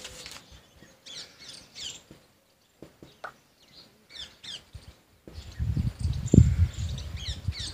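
Dry-erase marker squeaking on a whiteboard in short high chirps while words are written. In the second half comes a low rumble with one loud low thump a little past six seconds.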